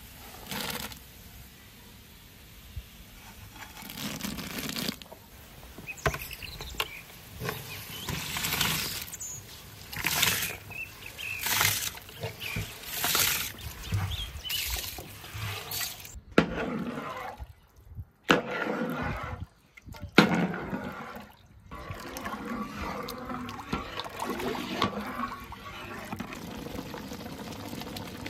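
Sliced coconut and basmati rice tipped into a large aluminium pot of boiling water, splashing in a string of short bursts. In the second half a steel ladle stirs the pot, with softer bubbling and sloshing and a few clicks of metal.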